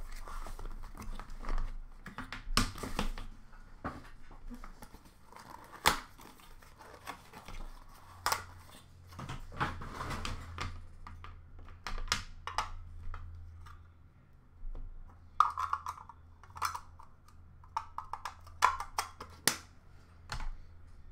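Cardboard card box and packs of hockey cards being handled: irregular sharp clicks, taps and short rustles as the box is opened and packs and cards are set into a plastic bin.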